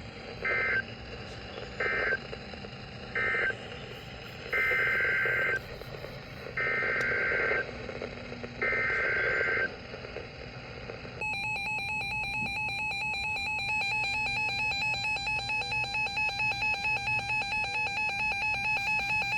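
NOAA Weather Radio alert signalling over a receiver: three short squawks of SAME digital data, the end-of-message code, then three longer data bursts, the header of the next warning, each separated by about a second of hiss. About eleven seconds in, a loud alert tone starts and pulses rapidly without stopping, announcing a tornado warning.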